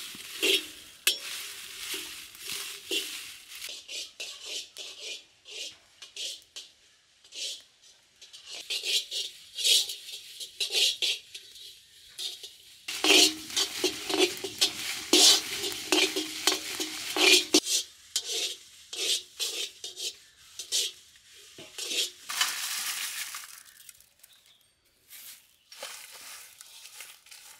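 A spoon or spatula stirring and scraping in a metal pan, with repeated short scrapes and clinks, as masala is dry-roasted. A louder, steadier stretch of a few seconds comes in the middle.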